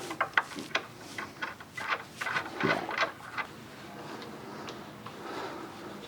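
Hex key turning stainless steel bolts into a teak chair frame: a quick run of small clicks and taps, which gives way to fainter scraping and handling after about three and a half seconds.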